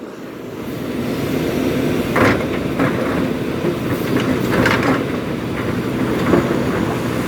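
JCB 3DX Super backhoe loader's diesel engine working under load, building up over the first second, with stones clattering and knocking against metal a few times as they are handled.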